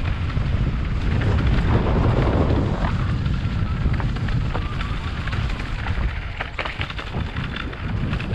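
Wind buffeting a moving action camera's microphone as a low, steady rumble, with crunching from the dry stony dirt trail and scattered short rattling clicks throughout.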